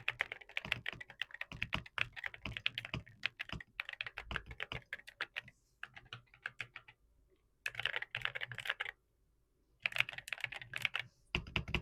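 Typing on a Royal Kludge RKS98 mechanical keyboard fitted with heavy ceramic Cerakeys keycaps on WS Morandi switches: fast runs of key presses, the keyboard's sound test, stopping briefly a few times.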